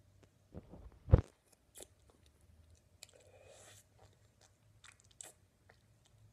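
Mouth noises from a hard Atomic Fireball cinnamon candy being sucked and worked in the mouth: scattered crunchy clicks of the candy against the teeth, the sharpest about a second in, with a soft breath a little after the middle.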